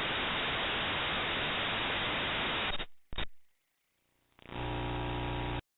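Steady static hiss that cuts off about three seconds in, then a short blip of the same hiss, a gap, and a second stretch of hiss with a steady buzzy hum before stopping abruptly.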